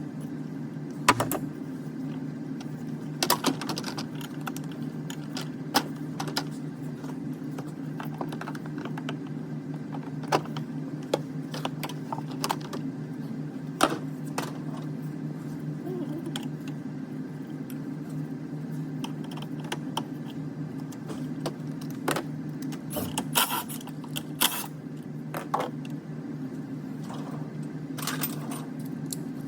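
Scattered sharp clicks and taps of parts and tools being handled during a battery replacement, several seconds apart, over a steady low hum.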